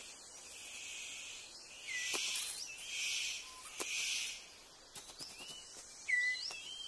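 Rainforest ambience: a steady insect hiss with short, gliding bird whistles repeating throughout, and three louder hissing surges about a second apart in the middle.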